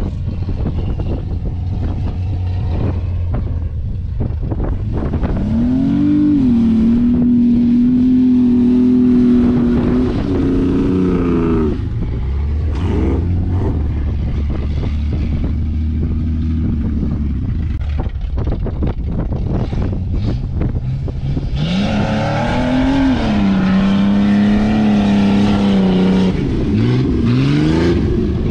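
Off-road vehicle engine revving up hard and holding high revs for several seconds, then backing off, twice, over a steady low rumble.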